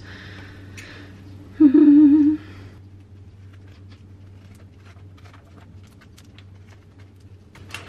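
A woman hums one short steady note about a second and a half in, the loudest sound here. Then scissors snip through a thin plastic peel-and-stick tile sheet in a run of faint, irregular short cuts.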